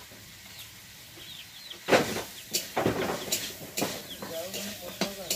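A metal spatula scraping and knocking in a kadai while vegetables are stir-fried. It starts about two seconds in with a sharp clang, then goes on as repeated scrapes and clatters about twice a second.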